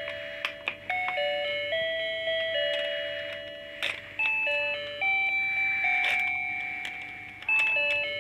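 A simple electronic chime tune, notes stepping up and down one at a time, each note fading after it sounds. A few sharp clicks come about half a second in, near four seconds and near the end.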